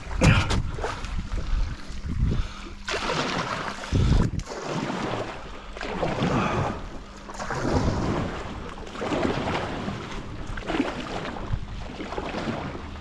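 Water sloshing and splashing in repeated surges every second or two, with wind buffeting the microphone.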